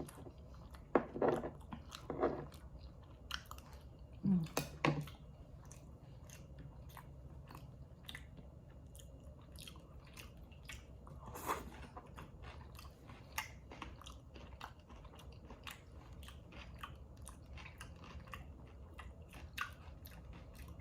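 Close-miked chewing of sausage, rice and cucumber: wet mouth clicks and smacks throughout, with a few louder bites in the first few seconds and again about halfway through.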